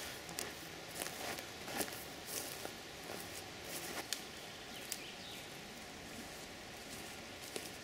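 Scattered sharp cracks and rustles: a boot scuffing bare forest soil, then dry dead twigs being snapped off a tree by hand.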